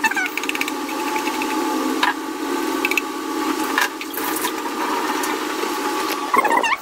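Carrot grated on a metal box grater: a quick run of rasping strokes at first, then a few single knocks against the steel bowl, over a steady background hum.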